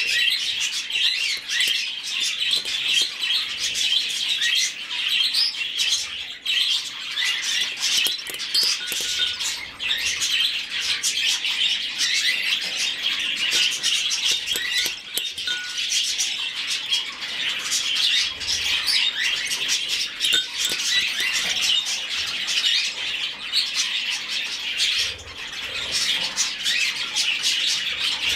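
A budgerigar chick giving begging calls while being hand-fed: a rapid, continuous chirping.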